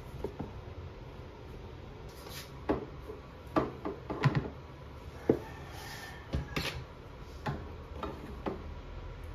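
A white plastic storage basket of folded cloths being set onto a cabinet shelf: a string of light knocks and clicks as plastic bumps against the shelf and cabinet, with rustling of cloth.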